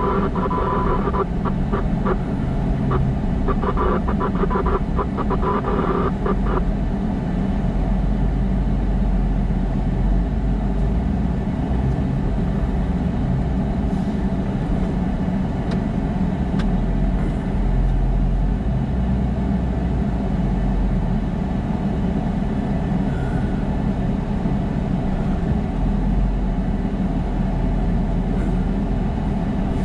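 Steady road and engine noise heard from inside a moving car. For about the first six seconds a higher, broken tone sits over it, then drops away.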